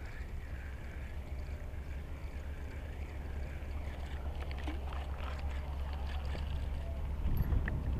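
Wind rumbling on the microphone, slowly growing louder. From about halfway, light clicks and rustles of a spinning rod and reel being handled, with a louder thump near the end.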